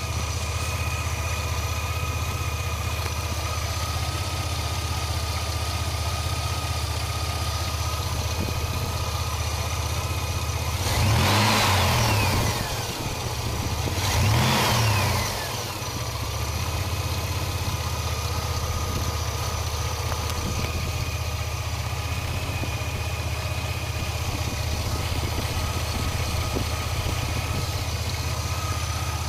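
2002 Chevy S10 Blazer's 4.3-litre V6 idling, blipped twice in quick succession about eleven and fourteen seconds in. With each rev a high whine comes in and glides down in pitch as the engine settles back to idle; its cause is not yet known.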